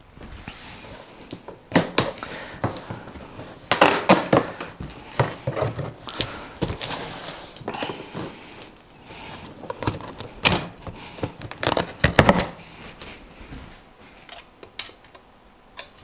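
Cardboard box being opened by hand: scattered knocks and clicks, with crinkling and short tearing sounds as the packing tape is cut with a knife and the flaps are handled.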